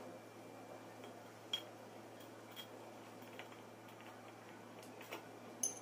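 Scattered light clicks and clinks of small compressor parts being handled and fitted into the housing during reassembly, the two sharpest about a second and a half in and near the end, over a faint steady hum.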